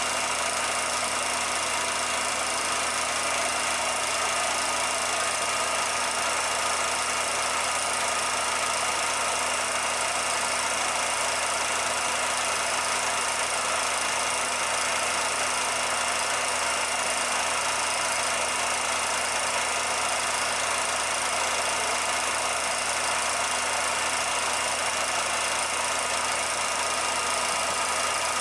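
A 16mm film projector running steadily: an unchanging mechanical hum and hiss with a few held tones, and no sound from the train itself, since the film is silent.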